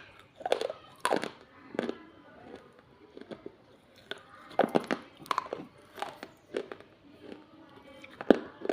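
Pieces of baked clay pot being bitten and chewed, a series of sharp crunches and cracks roughly one or two a second with quieter crackling between them.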